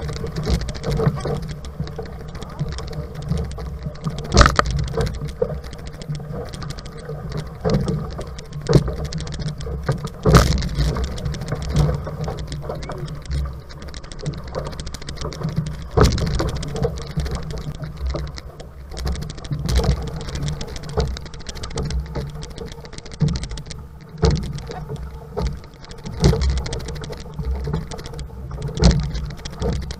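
Six-man outrigger racing canoe moving through open-ocean chop: steady rush and splash of water along the hull with wind buffeting the microphone, broken by irregular sharp knocks and slaps from the hull and paddles.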